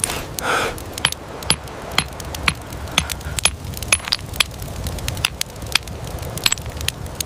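Sharp stone-on-stone clicks of flint knapping, roughly two a second, over a low steady rumble.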